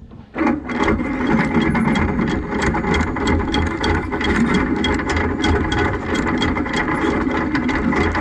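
Anchor windlass hauling in anchor chain, starting about half a second in: a steady motor hum with the chain links clicking over the gypsy at about three or four a second.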